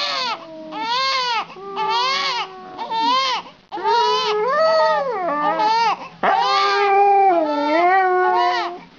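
A baby crying in short, repeated wails while a husky lies beside it and howls along. From about four seconds in, the dog's long, wavering, lower notes are held under and between the baby's cries.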